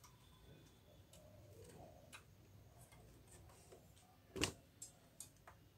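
Faint scattered clicks and ticks of plastic printer parts being handled inside an open inkjet printer, with one sharper click about four and a half seconds in and two lighter ones after it.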